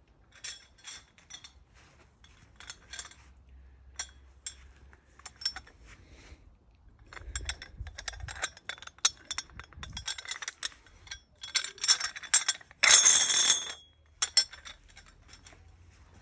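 Small metal hardware, a carabiner among it, clinking and rattling as it is handled, in many quick separate clinks that grow busier past the middle, with one louder rattle lasting under a second about three-quarters of the way through.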